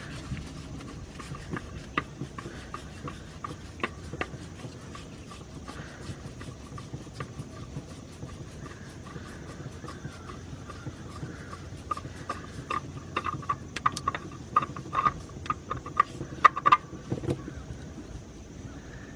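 Oil filter being spun off by hand, with light scraping and clicks, while engine oil trickles and drips down into the drain pan. The clicks and drips come quicker and louder for a few seconds late on.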